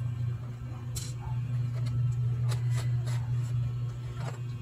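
Scattered light plastic clicks and scrapes as the optical drive is pushed out and slid from its bay in the underside of an Acer E5-476G laptop, over a steady low hum.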